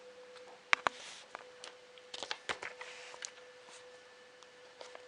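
Packaging being handled and opened: a few sharp clicks and short rustles, busiest about a second in and again around two and a half seconds in, over a faint steady hum.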